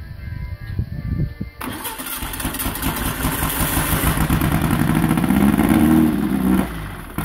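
Vintage Volkswagen 40 hp air-cooled flat-four engine, freshly rebuilt, cranking on its starter and firing about a second and a half in, then running loud and smoky through an open exhaust stack with its speed rising steadily, before cutting out abruptly near the end.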